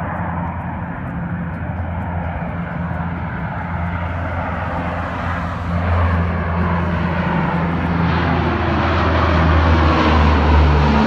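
Four-engine Lockheed Hercules turboprop climbing out after takeoff, its propellers making a steady low drone. The engine noise grows steadily louder as it approaches and passes nearly overhead.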